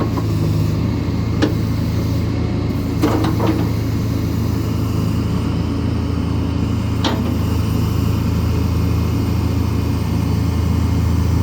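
John Deere 310SK backhoe loader's diesel engine running steadily at idle, with a few sharp knocks or clicks about a second and a half in, around three seconds in, and about seven seconds in.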